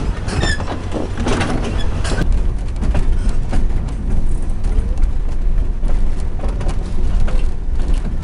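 Freight train rolling along, heard from on board: a steady low rumble with irregular clacks of the steel wheels on the rails. The sound changes in character about two seconds in.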